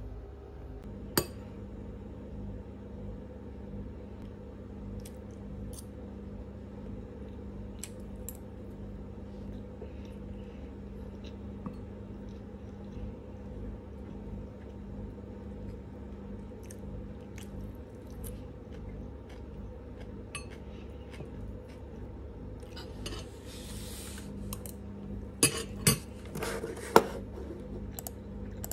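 Metal spoon and fork clinking and scraping against a ceramic bowl while eating, with a steady low hum underneath. There are a few louder clatters near the end as the cutlery is set down in the bowl.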